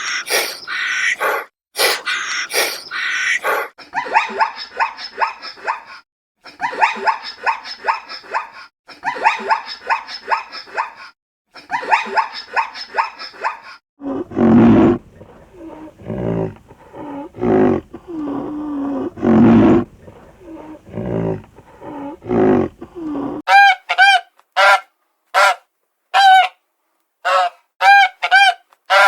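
A run of farm animal and bird calls, cut one after another. Dense, rapid chattering calls come first, then a stretch of deeper, lower calls about halfway through. A series of short, loud honking calls follows near the end.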